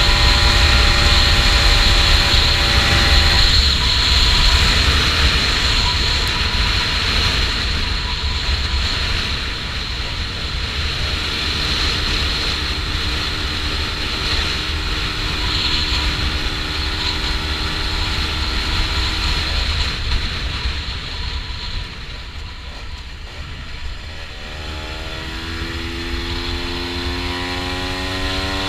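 Honda NSR125's two-stroke single-cylinder engine on the move. Its steady note drops away a few seconds in, settles to a steady lower note for a stretch, then climbs in pitch as the bike accelerates near the end. Heavy wind rumble on the microphone runs underneath.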